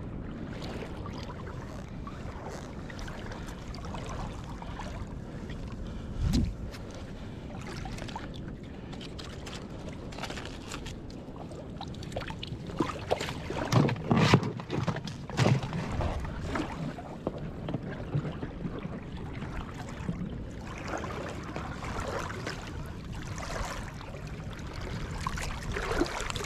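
Water sloshing and splashing around the legs of someone wading with a crab dip net. There is a single low thump about six seconds in, and a run of knocks and clatter around the middle as a crab is dropped into a floating plastic crab tub.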